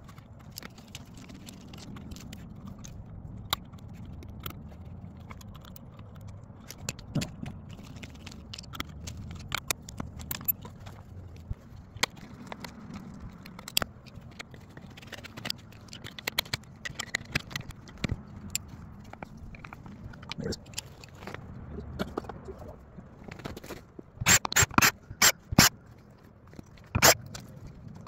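Hand tools working on the steel rail joints of a miniature railway track: scattered clicks, knocks and scrapes, then near the end a quick run of about five loud, sharp metal strikes and one more a moment later.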